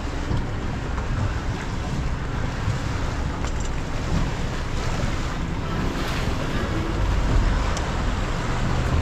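Tour boat under way on open water: water rushing and splashing along the hull, with the boat's motor and wind buffeting the microphone. The low rumble gets louder about seven seconds in.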